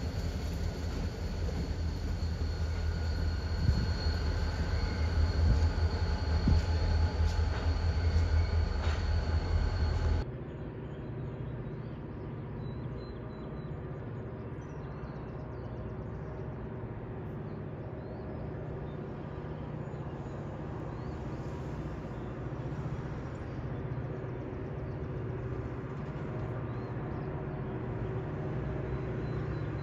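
A pair of diesel locomotives running past at close range: a loud low engine rumble with steady high tones over it. About ten seconds in it cuts to a much quieter steady low drone.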